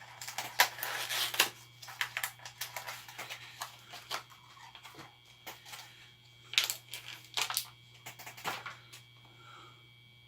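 Plastic packaging of a hollow-body frog fishing lure crinkling and clicking as it is opened by hand. An irregular run of crackles, busiest near the start and again past the middle, stops near the end.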